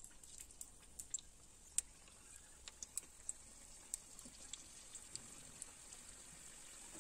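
Singaras deep-frying in hot oil in a kadai: a faint steady sizzle with scattered sharp pops and crackles.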